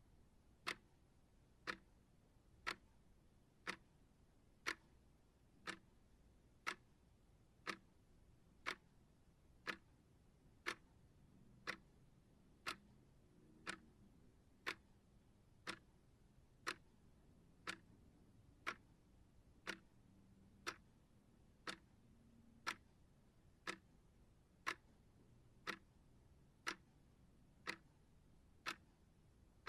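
Clock ticking steadily, one sharp, even tick a second.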